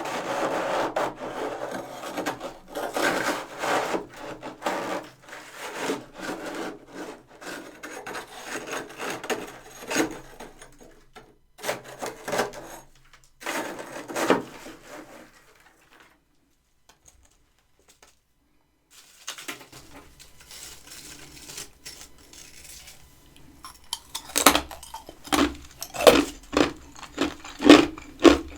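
Freezer frost being scraped and crunched close to the microphone, with a pause of a few seconds in the middle. Near the end come regular sharp crunches, about one and a half a second.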